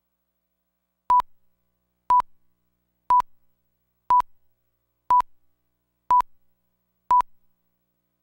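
Countdown leader beeps: seven short, identical high beeps at one steady pitch, one each second.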